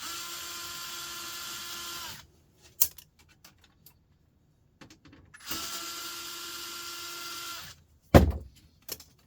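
Cordless drill-driver running twice for about two seconds each at a steady pitch, backing screws out of a laser printer's casing to get at the circuit boards. A sharp click comes near the middle, and a loud thump at the end.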